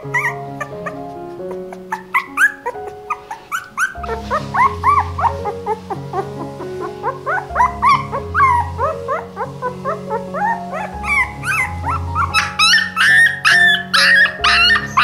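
Newborn puppy squealing and whimpering over and over, short high cries that rise and fall, coming thicker and louder toward the end. Background music plays under it, its bass line coming in about four seconds in.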